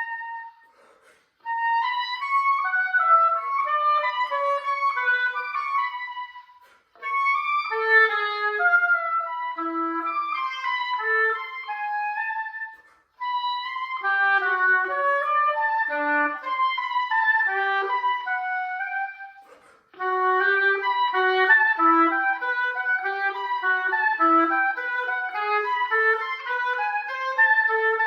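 Solo oboe playing quick running passages of short, detached notes, stopping briefly four times between phrases.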